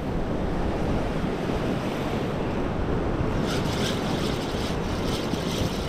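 Sea surf washing on the shore with wind buffeting the microphone, a steady rushing noise; a rougher high hiss joins about halfway through.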